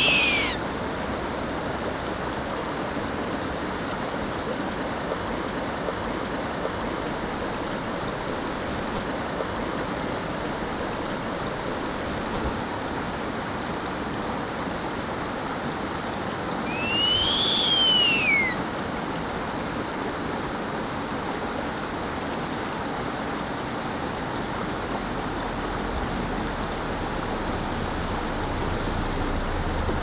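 Juvenile Blakiston's fish owl calling: a call that rises and falls ends just after the start, and one long rising-then-falling call comes a little past halfway. Both sound over a steady rushing background noise.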